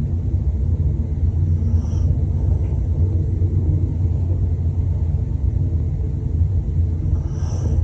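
Dog snoring: a low, steady rumble.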